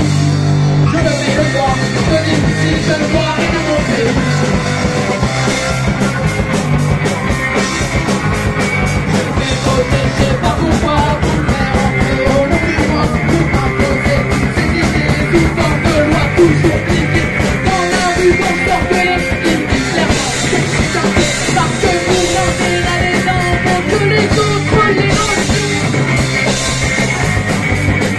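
Punk rock band playing live: electric guitar, bass guitar and drum kit at a fast, even beat, with vocals sung into microphones.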